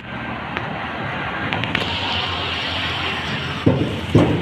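Honda Jazz hatchback's engine running as the car creeps up onto a car carrier's steel loading deck, over a steady rushing noise, with two thumps near the end.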